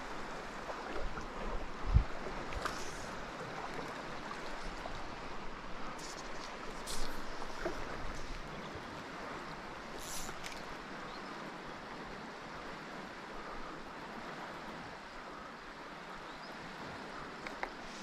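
Fast, high river running at runoff flow, a steady rushing noise. A sharp bump about two seconds in, and a few brief swishes and handling sounds around three, seven and ten seconds in.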